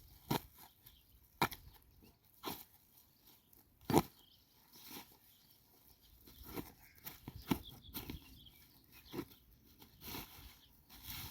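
A series of irregular sharp knocks and crunches, roughly one a second, the loudest about four seconds in.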